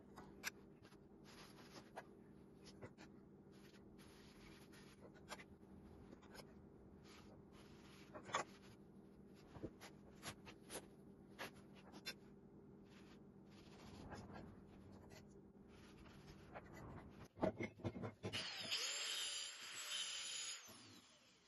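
Faint steady hum with scattered light clicks and knocks as stain cans and a rag are handled. About 18 s in, an angle grinder with a wire wheel starts up and brushes rust off a cast-iron cart caster wheel for about three seconds, then stops just before the end.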